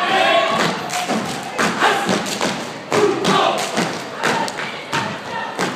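Step team stomping and clapping in a percussive rhythm, sharp thuds about two or three a second, with shouted voices over them at the start and again around the middle.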